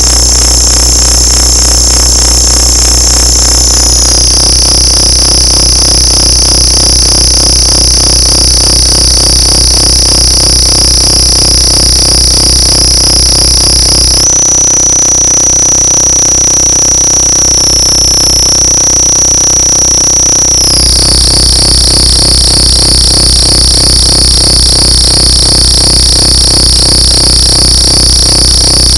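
Harsh noise music: a loud, dense wall of distorted electronic noise with piercing high-pitched tones over a steady low drone and a fast fluttering texture. The high tones step down in pitch about four seconds in, shift again around fourteen seconds, when the low drone turns to a rapid pulsing, and shift back near twenty-one seconds.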